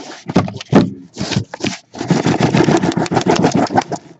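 Cardboard scraping and knocking as hobby boxes are slid out of a cardboard shipping case: a few short scrapes and knocks, then about two seconds of steady rough scraping near the end.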